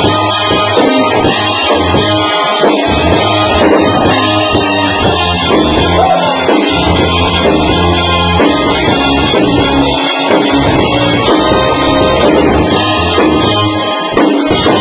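Live band playing together in a rehearsal room: drum kit keeping a steady beat under guitar, bass and keyboards, loud and full.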